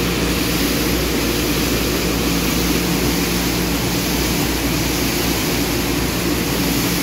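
Steady machinery noise with a low hum: a belt conveyor running while green coffee beans pour off its end roller in a continuous rushing stream onto a dump grate.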